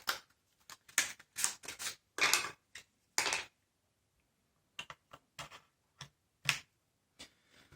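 Framework Laptop expansion cards and aluminium chassis being handled: an irregular run of sharp clicks and short scrapes as the cards slide and click into their bays, with a pause of about a second in the middle.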